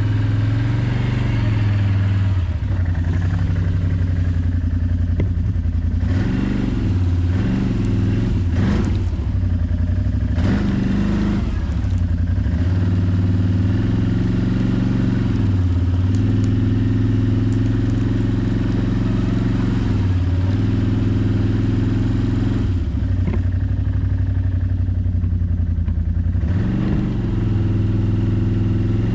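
Truck engine running under load as it drags a cedar log out of the forest, a strong low hum whose pitch rises and falls several times as the revs change.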